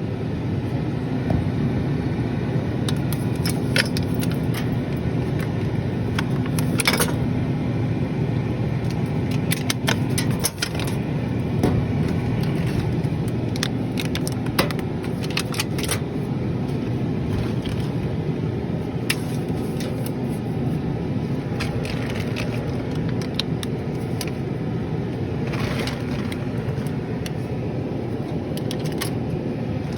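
Drink vending machine's refrigeration unit running with a steady loud hum, with scattered clicks and clatters of handling parts.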